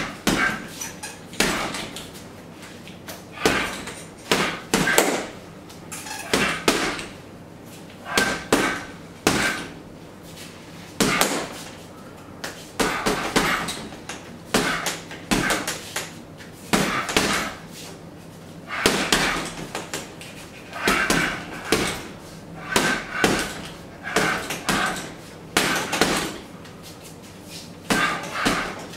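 Boxing gloves hitting a hanging heavy punching bag in fast combinations: clusters of two to four sharp thuds, with short pauses between them.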